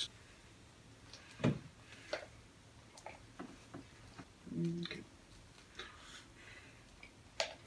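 A few sparse light taps and clinks of a spoon against a saucepan as mac and cheese is scooped out, with a louder knock about one and a half seconds in and a short low hum a little past halfway.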